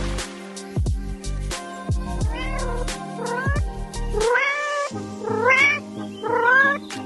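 A cat meowing about five times in short rising-and-falling calls, the middle one the longest, over background music.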